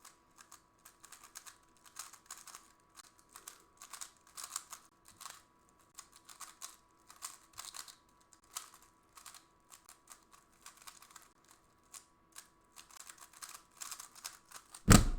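Rubik's cube being turned fast in a speedsolve: a rapid, irregular run of light plastic clicks and clacks. A single loud knock comes near the end.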